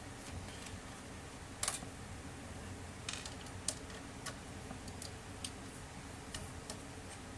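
Scattered sharp clicks and light taps from tools and plastic and metal printer parts being handled during disassembly, irregularly spaced, the loudest about a second and a half in, over a faint steady hum.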